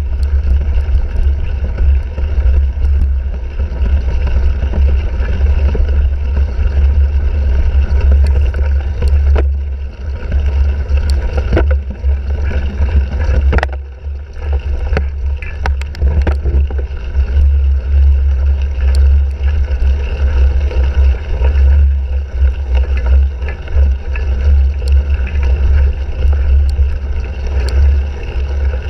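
Steady wind buffeting and low rumble on a bike-mounted GoPro Hero 3 as the cyclocross bike is ridden at race pace, with scattered knocks and rattles from the bike over rough ground.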